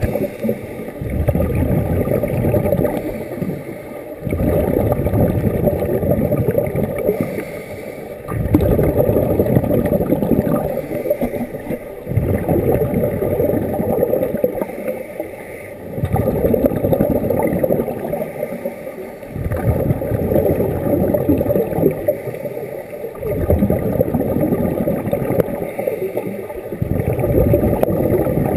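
Scuba regulator breathing heard underwater: a rumble of exhaled bubbles surges up with each breath, about every four seconds, with short quieter gaps between breaths.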